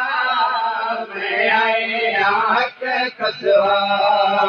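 Male chanting of a Punjabi noha, a Shia mourning lament, sung in long drawn-out melodic phrases with short breaks between them.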